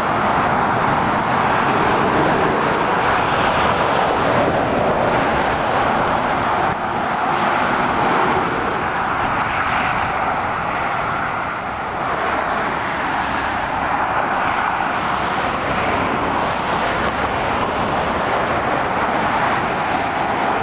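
Steady motorway traffic: tyre roar and engines of lorries and cars passing on the carriageway, dipping briefly a little past halfway.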